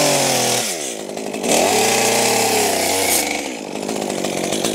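Two-stroke gas chainsaw cutting a shallow girdling ring around a small tree trunk, just into the bark's growth layer. Its engine revs high, drops back about a second in, climbs again, and drops once more before rising near the end.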